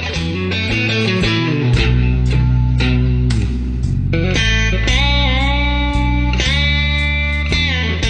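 Electric guitar music over a steady bass line, with long held notes that waver in pitch about halfway through.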